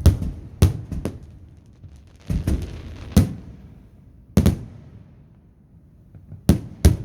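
Fireworks going off: about eight sharp bangs at irregular intervals, some in quick pairs, each followed by a short rumbling tail.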